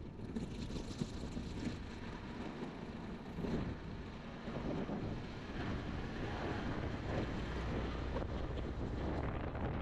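Wind buffeting the microphone: a rushing, rumbling noise that swells and eases without a break.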